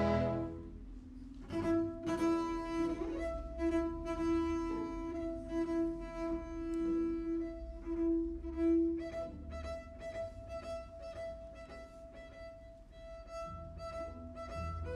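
A full orchestra's loud chord breaks off, and after a short pause a double bass plays a solo with the bow, mostly in its high register: long held notes mixed with quick runs.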